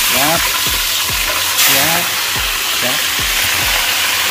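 Battered frog pieces deep-frying in very hot oil: a loud, steady sizzle that jumps up at the start. Short rising chirps recur about once a second underneath.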